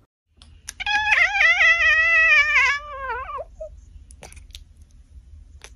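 Ginger cat meowing: one long, wavering meow that starts about a second in, lasts roughly two and a half seconds and drops in pitch at the end. A few faint clicks follow.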